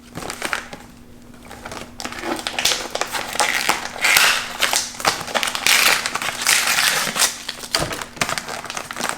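Paper gift packaging rustling and crinkling as a present is unwrapped by hand, in irregular bursts with small crackles, busier from about two seconds in.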